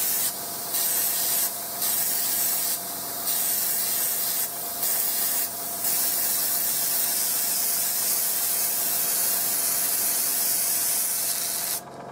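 Airbrush with a 0.35 mm nozzle spraying paint with the flow turned up high: a steady hiss of air that dips briefly about five times in the first six seconds, then cuts off near the end as the paint cup runs out.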